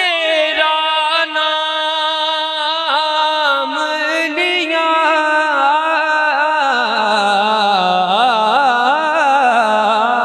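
A man singing one long held note of Urdu verse in tarannum, with wavering ornaments and no words breaking it; about seven seconds in, the pitch drops lower and the ornaments grow wider.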